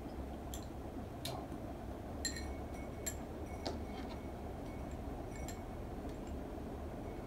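Metal spoon clinking against a small glass dessert cup while eating: several light, ringing clinks spaced irregularly about a second apart, over a steady low room hum.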